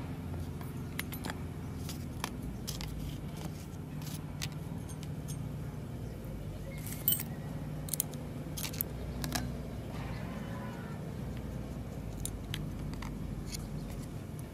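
Scattered metallic clicks and clinks from angle-grinder parts and a small ring spanner being handled, as the nut on the armature shaft end is loosened to free the pinion gear. The sharpest clinks come about seven and eight seconds in, over a steady low hum.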